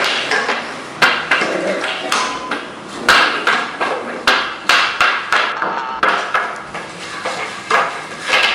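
Broom handle knocking and clattering on a ceramic tile floor as a small dog bites and tugs at the broom: an irregular run of sharp knocks, several a second.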